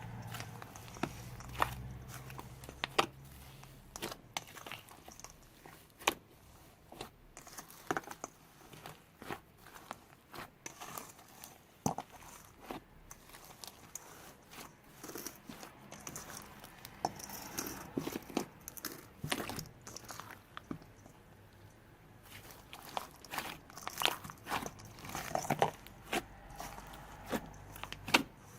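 Slime being squished, folded and pressed by hand with kinetic sand and crunchy add-ins mixed in, giving irregular sticky clicks, pops and crackles.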